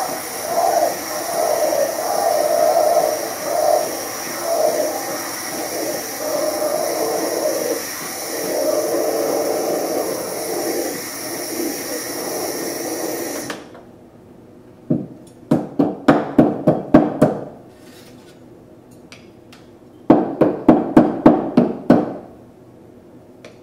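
Steam wand of a Capresso C1000 espresso machine frothing milk in a stainless steel pitcher: a steady hiss with a wavering gurgle, which cuts off suddenly about halfway through. Then two runs of rapid, sharp knocks follow a few seconds apart.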